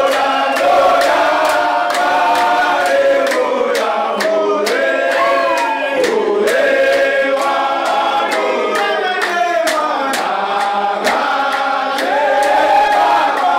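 A group of men singing together in chorus, with steady rhythmic hand-clapping throughout.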